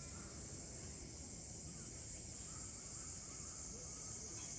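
Steady high-pitched drone of a summer insect chorus, with a few faint chirps midway.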